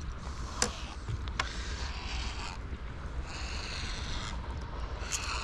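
Wind rumbling on the microphone, with two sharp clicks about half a second and a second and a half in, and two stretches of soft hissing.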